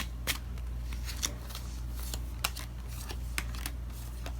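A deck of oracle cards being shuffled and handled, giving a string of short sharp card clicks and snaps over a steady low hum.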